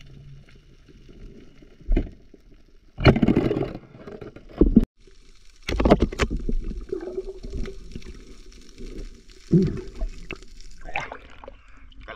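Muffled underwater water noise against a submerged camera: a low gurgling rumble broken by about six loud, short rushes of water.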